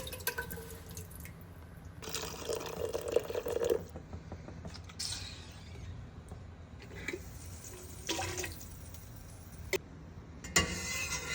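Water running from a kitchen tap in a few short spells, with drips and a few light clicks in between.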